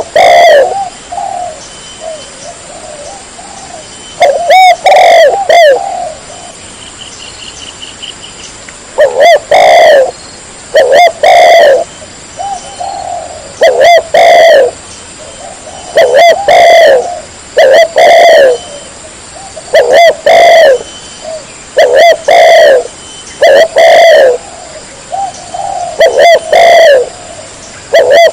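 Spotted dove cooing loudly and repeatedly. Its short phrases of low, rounded coos come a few at first, then after a pause about every one to two seconds.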